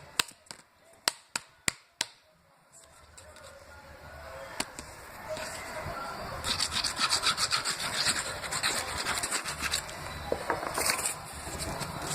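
Cardboard pieces being handled and rubbed while they are glued together. A few sharp clicks come in the first two seconds, then a scratchy rubbing of cardboard builds up and runs busiest through the second half.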